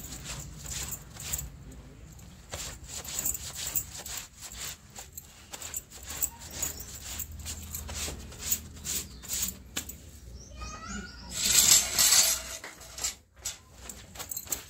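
Hand scrub brush scraping over wet, soapy clothes laid on the floor, in quick irregular strokes, with a louder, longer burst of scrubbing about eleven seconds in.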